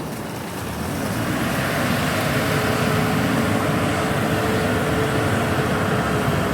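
Backhoe's diesel engine running steadily under load while it digs, with a faint steady whine from about two seconds in until near the end.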